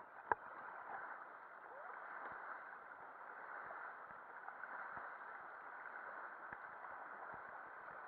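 Steady rush of river water flowing past a raft, with a single sharp knock about a third of a second in and a few faint knocks after it.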